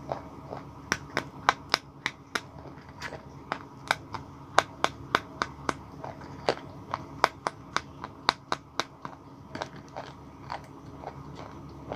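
White blackboard chalk being bitten and chewed close to the microphone: an irregular run of sharp, crisp crunches, about two or three a second.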